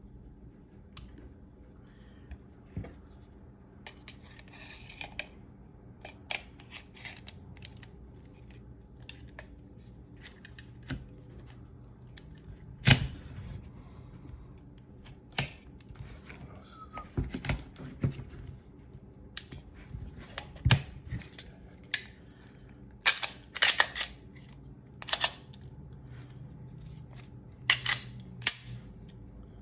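Glock 34 Gen 3 9mm pistol being handled and reassembled after a field strip: scattered clicks and clacks of its slide and parts against the polymer frame. A few sharp snaps stand out, and quicker groups of clicks come near the end.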